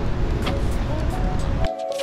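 Background music over a steady rushing noise from a waterfall. The rushing cuts off abruptly near the end, leaving only the music.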